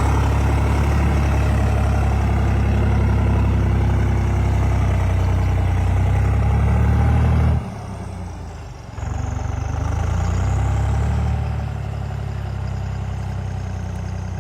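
New Holland 3630 tractor's diesel engine running hard while working through deep mud. About seven and a half seconds in, the engine note drops away for over a second, then picks up again a little quieter.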